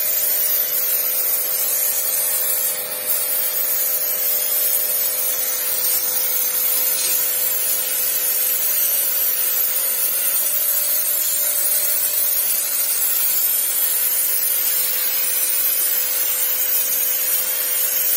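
StarQ Q3A 2100 W electric pressure washer running steadily, its motor humming under the loud hiss of a high-pressure water jet blasting a mossy concrete slab.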